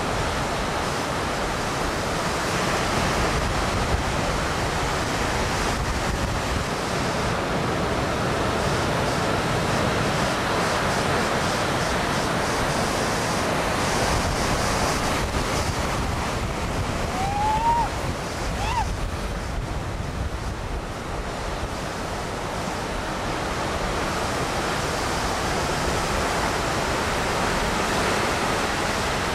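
Ocean surf: waves breaking and rushing as a steady roar of noise, with some wind on the microphone. Two brief rising chirps come a little past the middle.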